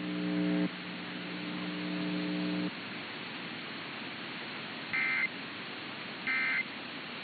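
A low steady buzz for the first two and a half seconds or so, then, over radio hiss, two short data bursts about a second and a half apart: the Emergency Alert System end-of-message code that closes a broadcast EAS test.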